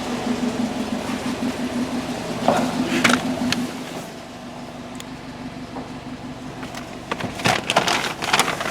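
2014 Subaru WRX's turbocharged EJ255 flat-four idling rough with a steady low hum, which drops noticeably quieter about four seconds in. A few sharp clicks come midway, and a quick run of clicks and knocks near the end.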